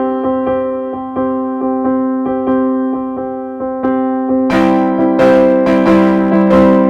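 Background piano music: soft sustained chords with gentle repeated notes, turning brighter and busier about four and a half seconds in.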